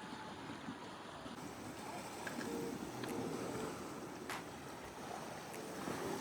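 Steady wash of sea water with wind noise, broken by a few sharp faint clicks.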